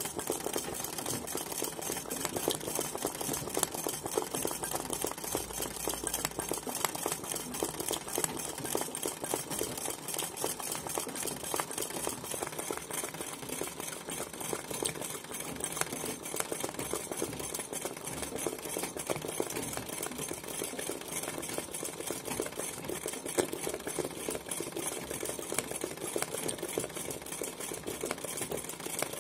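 Straight-stitch domestic sewing machine ('kara makine') running fast for free-motion embroidery, the needle stitching in a rapid, even run of strokes.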